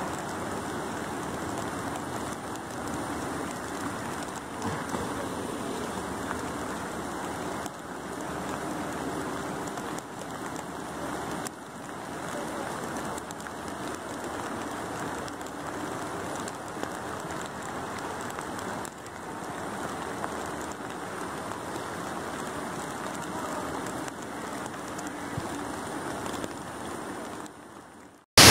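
Steady rush of rain and flowing floodwater, an even hiss with no distinct events, fading out just before the end.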